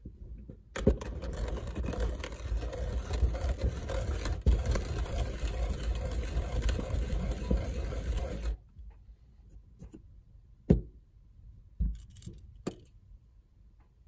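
Brass Turkish coffee grinder cranked by hand, giving a dense grinding rattle for about seven seconds before it stops. A few separate sharp knocks follow as the metal parts are handled.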